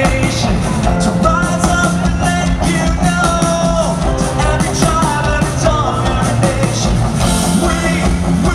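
Rock band playing live through an arena sound system: drum kit, electric guitar and a male lead singer, loud and steady, heard from the crowd.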